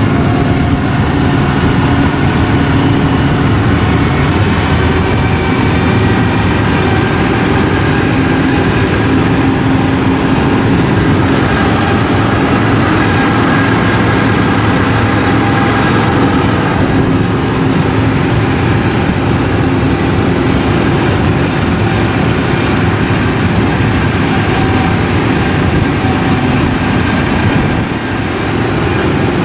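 Diesel engine of a farm machine running steadily at close range, an even unchanging drone with a steady hum.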